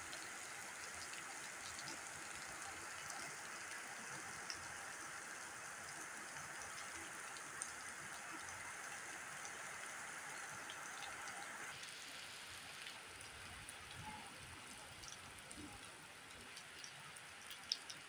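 Steady rain: a continuous even hiss with scattered sharper drop taps, easing slightly about two-thirds of the way through.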